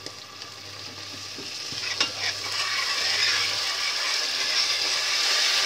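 Half a bowl of water poured into a steel pot of hot oil and tomato-purée gravy, setting off a hissing sizzle that grows louder over the first few seconds and then holds steady while a steel ladle stirs it, with a metal clink about two seconds in.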